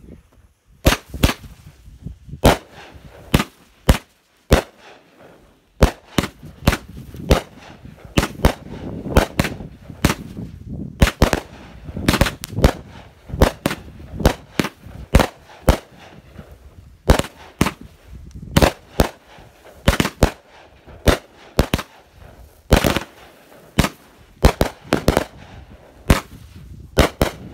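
Two 200-gram consumer firework cakes firing together: a fast string of sharp bangs as shots launch and burst, with a short lull about four seconds in.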